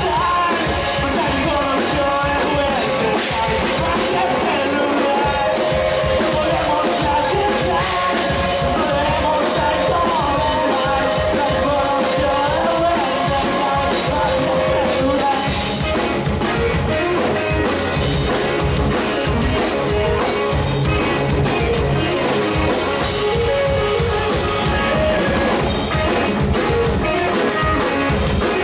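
A rock band playing live, loud and continuous, with drum kit and electric guitars.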